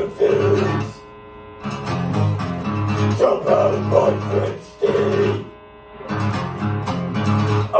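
An acoustic guitar and an electric guitar playing together: strummed chords in a steady rhythm. Twice the playing drops back to a quieter ringing chord, about a second in and again around six seconds in.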